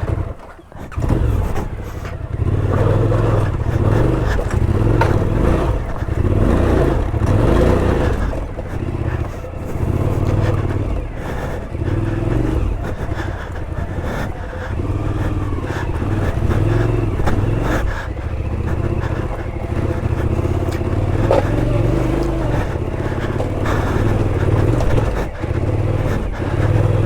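Big adventure-motorcycle engine working off-road through soft, wet ground, its revs rising and falling over and over. There is a brief drop in level about half a second in.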